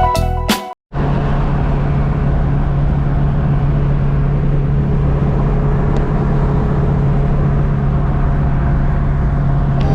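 Music cuts off under a second in, followed by a steady, unchanging engine drone with a strong low hum.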